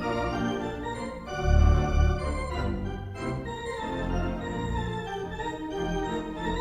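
Cartoon music score played on an organ: sustained chords and melody notes, with a louder, deeper passage about a second and a half in.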